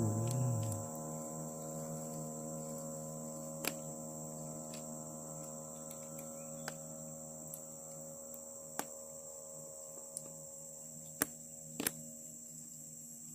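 Insects, crickets by the sound, chirping in a steady high-pitched drone over a low steady hum, with a few sharp clicks scattered through it, two of them close together near the end.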